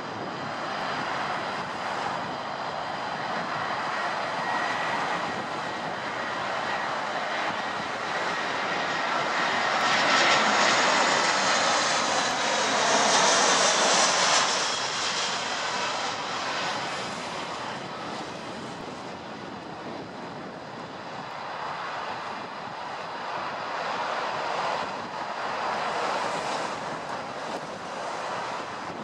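Airbus A320-214's CFM56 turbofan engines on final approach: a jet rumble with a high whine on top, growing as the airliner passes low overhead, loudest about halfway through, then fading as it moves away.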